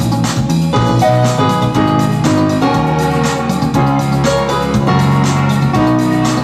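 Highlife-funk music played on an electronic keyboard: electric-piano-style chords and a bass line over a steady beat, with no singing.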